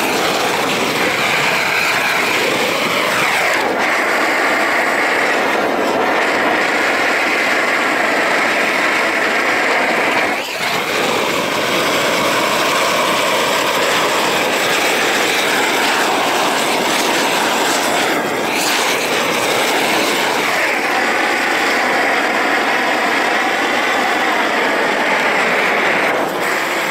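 Gas torch burning with a loud, steady rushing noise as it heats torch-on bitumen roofing membrane, with brief dips about ten and eighteen seconds in.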